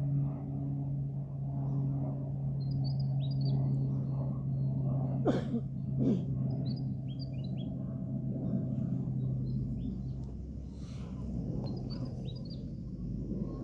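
Birds chirping in short clusters of high, downward-slurred notes, over a steady low hum that stops about ten seconds in. Two brief sweeps falling sharply in pitch stand out about five and six seconds in.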